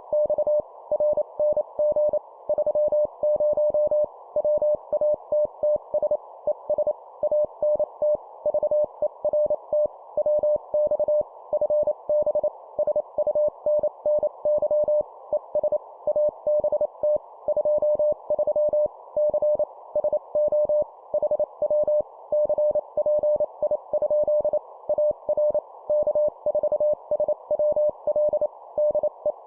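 Morse code (CW) sent at 25 words per minute as a keyed tone of about 600 Hz, spelling out one side of a standard amateur-radio contact exchange, over a steady narrow band of filtered hiss.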